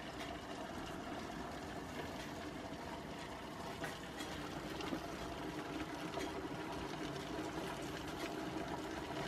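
Aluminium pressure-cooker still boiling eucalyptus leaves over a lit gas burner, giving a steady hiss and simmer.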